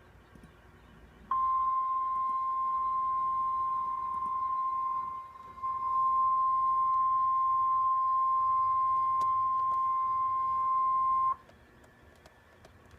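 NOAA Weather Radio 1050 Hz warning alarm tone: one steady high tone held about ten seconds, dipping briefly about halfway, announcing that an alert message follows.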